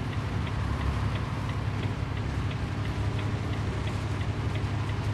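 Steady low drone of a vehicle's engine and tyres on a wet road, heard from inside the cab, with a faint regular ticking about three times a second.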